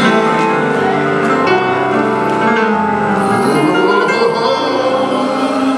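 Live gospel music: the band holds sustained keyboard chords.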